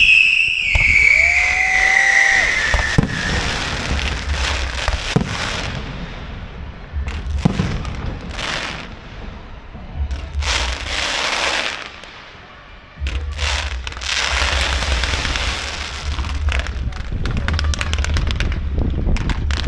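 Fireworks going off: a loud whistle falling in pitch over the first few seconds, then repeated sharp cracks and hissing bursts, with a brief lull about two-thirds of the way through.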